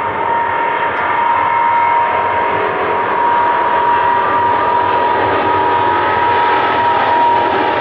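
Boeing 777-200 twin jet engines at takeoff thrust as the airliner accelerates down the runway: a loud, steady rush of engine noise with a high, even whine.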